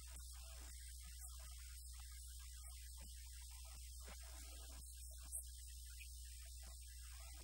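Faint, steady low electrical mains hum from the audio chain, with a light hiss over it and one small click about five seconds in.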